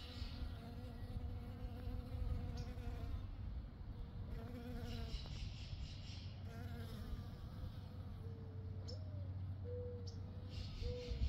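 A bee buzzing as it forages among flowers. The hum wavers in pitch and breaks off now and then, turning into short, higher buzzes in the last few seconds.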